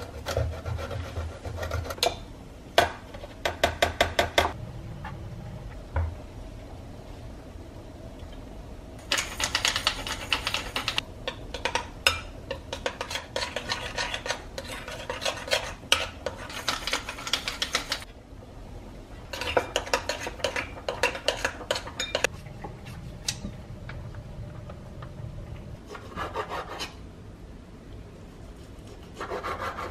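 Kitchen prep sounds: a block of Parmesan rasped in quick strokes on a stainless steel grater, then a fork beating egg yolk and grated cheese in a glass bowl in long stretches of rapid scraping against the glass, and near the end a knife cutting bacon on a wooden cutting board.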